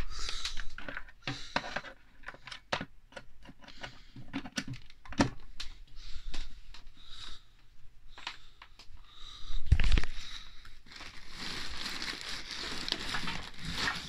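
Handling noise around a Miele canister vacuum cleaner: scattered clicks, knocks and rustling, with one heavy thump about ten seconds in and a steadier hiss over the last few seconds.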